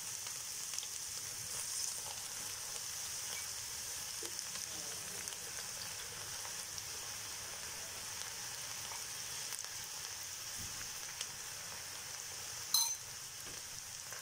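Batter-coated okra strips deep-frying in hot oil in a small kadai: a steady sizzle. A single short sharp click near the end.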